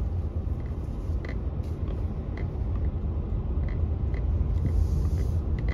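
Car interior while driving: a steady low rumble of engine and tyres on the road, with light clicks about twice a second.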